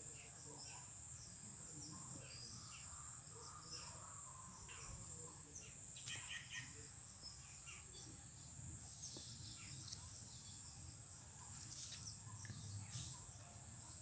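Evening chorus of crickets and other insects: a steady high-pitched trilling, with a fast pulsing trill that stops about two seconds in. Short bird chirps are scattered over it.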